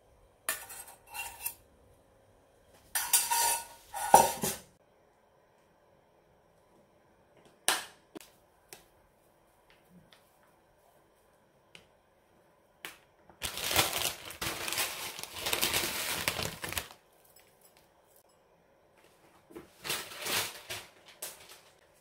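Clinks and scrapes of a metal fork and a stainless steel pot in the first few seconds. Later comes a few seconds of rustling, then a shorter rustle near the end, as bonito flakes and chopped green onion are sprinkled over a bowl of rice.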